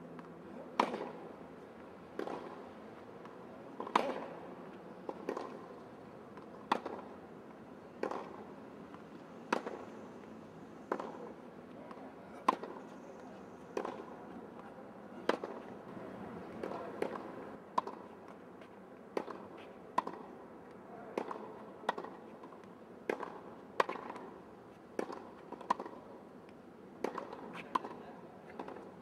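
Tennis ball struck by racquets in a rally: a sharp pop about every second or so, some hits louder than others.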